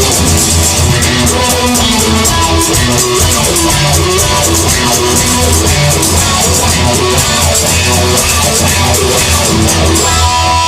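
Instrumental rock music: electric guitar over a drum kit with a steady beat.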